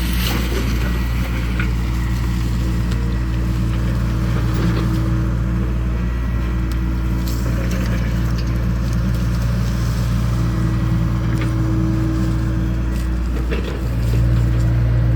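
Excavator's diesel engine running steadily, with a few faint knocks; near the end it briefly dips, then comes back louder.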